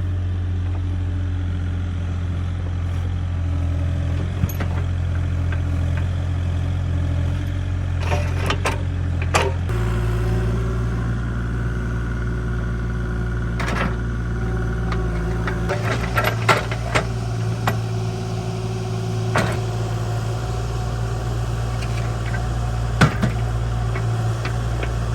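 Compact excavator's diesel engine running steadily while it works, its note shifting about ten seconds in, with scattered knocks and clanks.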